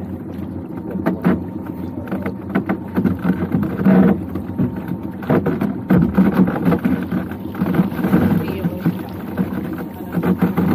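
Small open fishing boat at sea: water slapping against the hull, broken by irregular knocks and clatter from gear being handled on board.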